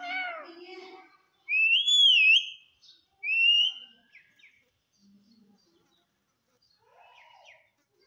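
Rose-ringed parakeet calling: a short arching call at the start, then two loud whistles about a second and a half apart, the first wavering up and down in pitch, the second rising.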